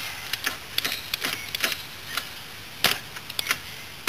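Irregular sharp metal clicks and clinks of a combination wrench on the cover bolts of a Yamaha Badger (YFM80) quad engine as the bolts are tightened down. The loudest click comes about three seconds in.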